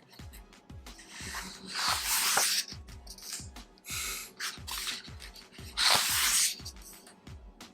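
Pages of a large photobook being turned, with two loud papery swishes and a smaller rustle, over background music with a steady beat.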